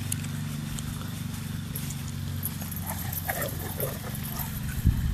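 Two Great Danes running and playing on grass, with footfalls and a few short vocal sounds from the dogs about three seconds in, ending in a loud thump near the end. A steady low hum runs underneath.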